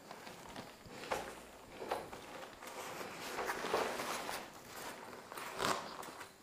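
Padded fabric carry bag being lowered onto a desk and handled: rustling and scraping of the cloth in several short bursts, with a longer rustle in the middle.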